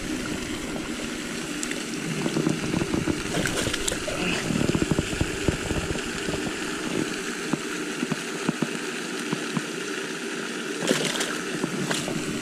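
Shallow water splashing and sloshing as a freshly caught bass is held and moved in the water at the pond's edge, with many small clicks and knocks from handling.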